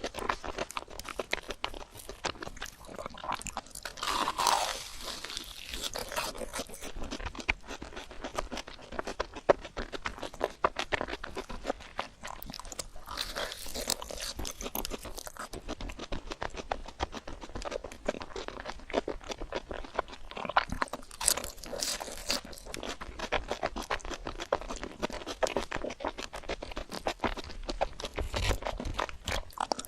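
Close-miked eating sounds played at double speed: rapid chewing and crunching, with a few longer, louder noisy stretches.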